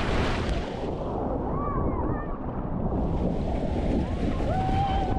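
Rushing water and wind buffeting the microphone on a family raft water slide, a steady rumbling wash with faint distant voices.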